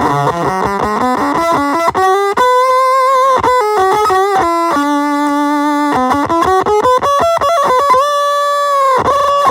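Electric guitar played through a Green Tree effects pedal, with a slightly distorted tone: quick runs of single notes broken by held notes with vibrato, the last held note bending down in pitch near the end.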